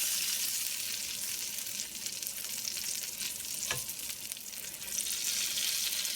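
Pancake batter frying in a pan greased with vegan butter: a steady high sizzle, with a single light click about three and a half seconds in.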